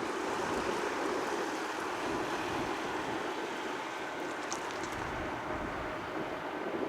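Steady distant rushing of a Boeing 767's jet engines, with a few faint high clicks about four and a half seconds in.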